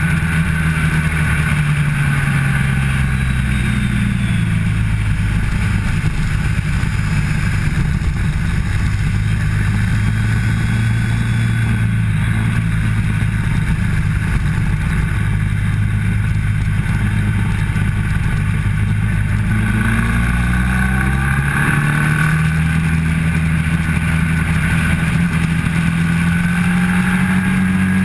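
Motorcycle engine heard from the bike itself at track speed, with wind rush over the microphone. The engine note falls within the first few seconds, holds lower through the middle, then climbs steadily over the last several seconds as the bike accelerates.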